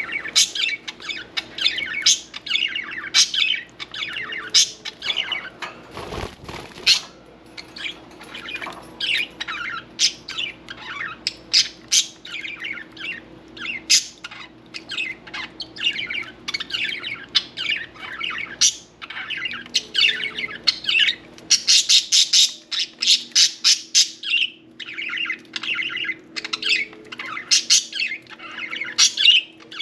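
Budgerigars chattering non-stop with quick chirps and squawks, the calls packing into a dense run about two-thirds through. A low thud sounds about six seconds in.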